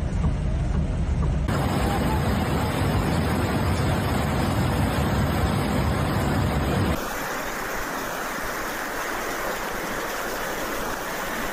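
Rushing muddy floodwater and heavy rain, with a deep rumble of wind or movement on the phone microphone. About seven seconds in, the rumble drops out and a steadier, thinner hiss of water carries on.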